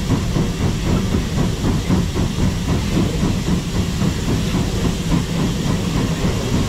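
Steam locomotive on a metre-gauge mountain railway running along the track: a steady low rumble of the engine and wheels on the rails, under a continuous hiss of steam.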